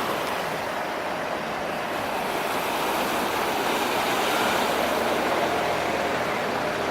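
Sea surf washing on the shore: a steady, even rush of breaking waves.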